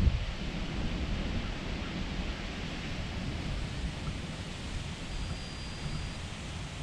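Strong wind blowing on the microphone: a steady rushing hiss over a low rumble.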